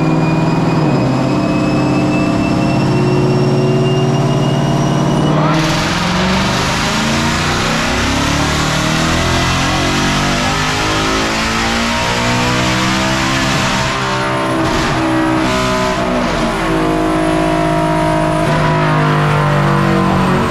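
Whipple-supercharged 5.0L V8 of a 2024 Mustang GT running hard on a chassis dyno in 7th gear at about 160 mph, with a high supercharger whine rising slowly. About five seconds in, a loud rushing noise joins and covers the whine.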